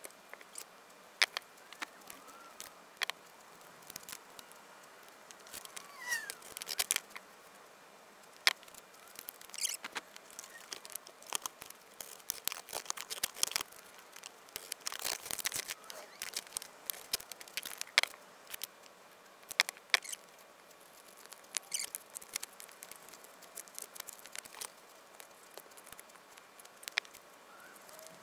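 Irregular clicks, taps and rustles of cut foam shower board panels being handled, stood up and pressed together by hand on a workbench.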